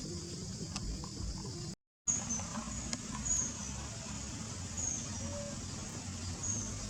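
Outdoor ambience with a steady high-pitched insect drone, broken by a short total dropout about two seconds in. After the dropout a low rumble carries on, with a few short high chirps.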